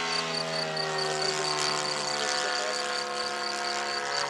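Radio-controlled model Spitfire's engine running in flight, its note sliding slowly lower in pitch as it banks and passes.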